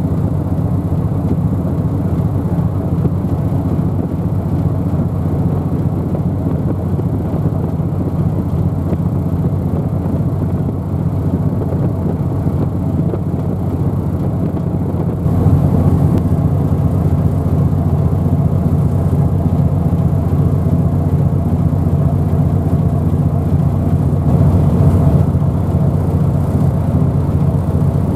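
Steady low engine drone with a rushing noise over it. It grows louder about halfway through.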